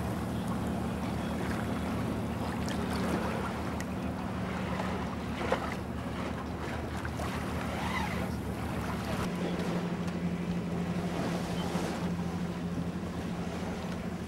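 Sailing boat moving over choppy river water: a steady rush of water and wind, with a low steady hum underneath that shifts slightly about nine seconds in.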